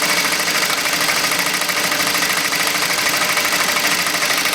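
AtlasUSA AT2150M industrial zigzag sewing machine running steadily, sewing a zigzag stitch with a fast, even rhythm.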